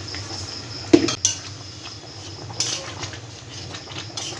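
Spatula knocking and scraping against a black wok while stirring a watery meat and potato curry, with one sharp clank about a second in and lighter scrapes after.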